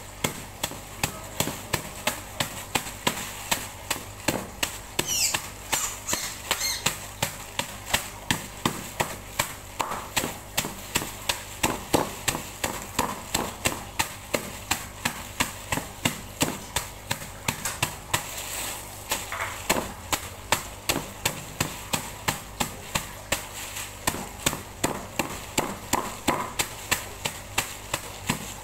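Heavy knife chopping fish heads wrapped in a plastic bag on a thick wooden chopping block: a steady run of sharp chops, roughly two or three a second.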